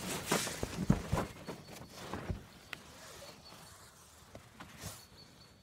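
Rustling of hammock fabric and mosquito netting as a person climbs in and settles down, with a few soft knocks in the first couple of seconds; the rustling dies down toward the end.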